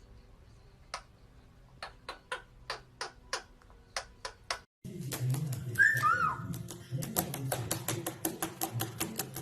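Pet parrot making a series of sharp clicks, about two a second. After a cut, it clicks more busily and gives two short falling whistled chirps in quick succession.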